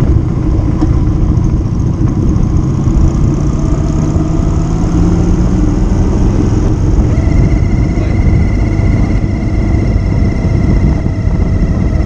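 Motorcycle on the move: a loud, steady low rumble with the engine note climbing slowly. A steady high whine joins about seven seconds in.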